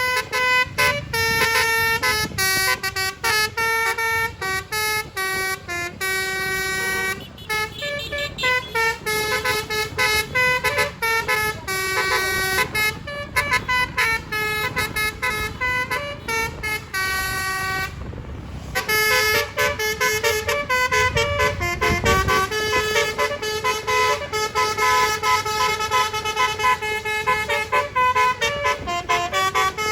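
Basuri "telolet" multi-tone bus horn playing a fast tune of short notes that jump between pitches. It breaks off briefly about eighteen seconds in, then plays on.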